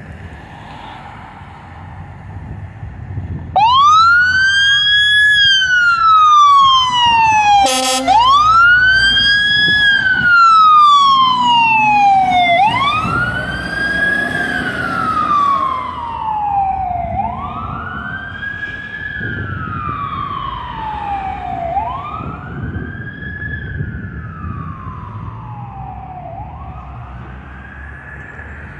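Fire ladder truck's engine running, then about three and a half seconds in its siren starts wailing, rising quickly and falling slowly about every four and a half seconds. A short horn blast sounds about eight seconds in. The siren grows fainter over the second half as the truck drives away.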